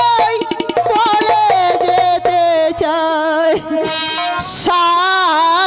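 Jatra song: a solo voice singing a long, wavering, ornamented melody over fast tabla-style hand-drum strokes and instrumental accompaniment.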